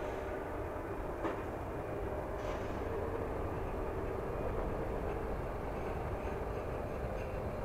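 Passenger train hauled by an electric locomotive pulling out of a station: a steady rumble with a constant hum, and a few sharp clacks of wheels over rail joints in the first seconds.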